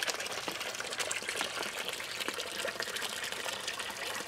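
Water from a village fountain's tap pouring steadily and splashing into a shallow concrete basin, with a constant fine spatter.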